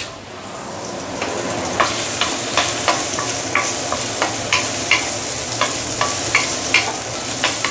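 Ginger slices sizzling in hot oil in a stainless steel wok, the sizzle building over the first second. From about two seconds in, a wooden spatula stirs them, knocking against the wok two or three times a second.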